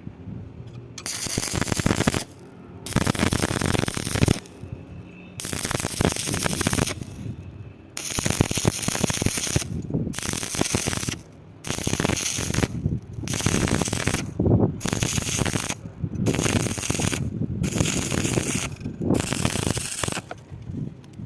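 Electric arc welding crackling in about eleven short bursts of one to two seconds each, the arc struck and broken again and again with brief pauses between, as in a run of short stitch welds.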